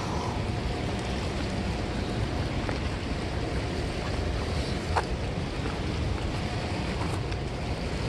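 Steady wind buffeting the microphone over the wash of a wide river, with one brief click about five seconds in.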